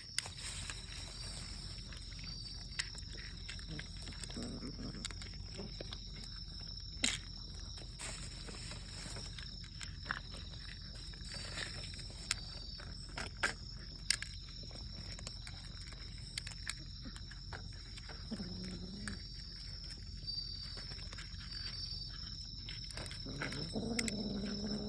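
A free-roaming cat making a few short, low calls: one about four seconds in, one about eighteen seconds in and a longer one near the end. Scattered sharp clicks sound over a steady hum.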